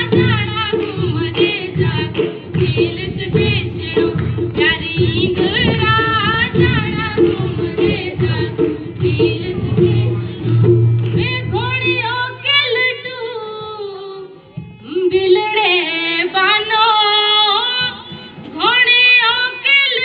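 Himachali Nati folk song: a singing voice over a quick, dense drum beat. About halfway through the beat drops away, leaving mostly the voice and melody, before the low beat comes back near the end.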